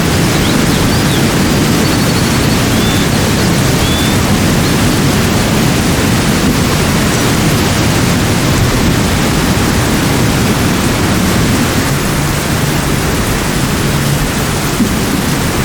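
Steady, even rushing noise with a heavy low end, the kind of ambience a nature-sounds recording of running water or wind gives, with a few faint short high chirps in the first few seconds.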